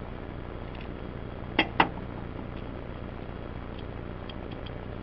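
Two sharp clicks about a fifth of a second apart, over a steady low hum.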